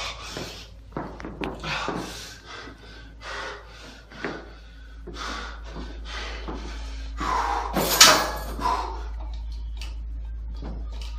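Irregular knocks, rubs and clatter of a camera phone being handled and moved, mixed with the sounds of moving between gym stations, with a louder clatter about eight seconds in.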